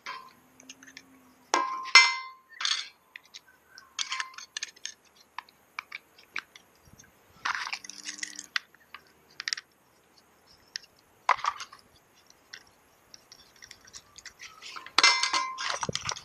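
Scattered clicks, clinks and knocks of plastic and metal parts (a handheld weather meter, its vane mount, a mounting rod and tripod pieces) being handled and set down on a galvanised metal table, some clinks ringing briefly; the loudest comes about two seconds in and a run of them near the end.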